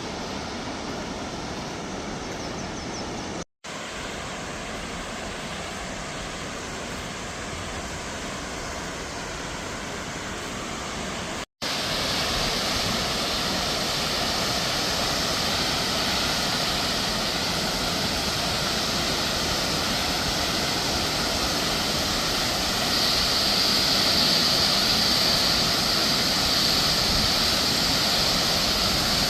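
Tokopah Falls: water rushing steadily down the cascade. The sound cuts out briefly twice, and after the second break, about eleven seconds in, it is louder and fuller in the highs.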